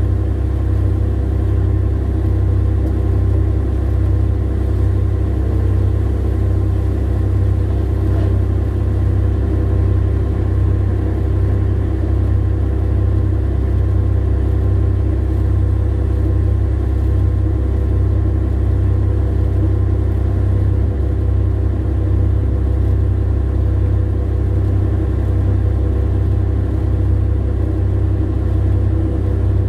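Large diesel engine running steadily, heard from inside a haul truck's cab as an even, loud low drone with a steady hum above it.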